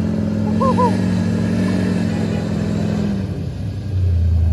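A Duramax diesel pickup and a Ford Bronco running at high revs under load, pulling against each other, with the pickup's rear wheels spinning. A steady engine drone; one higher engine note drops away about three seconds in, and a deeper drone swells near the end.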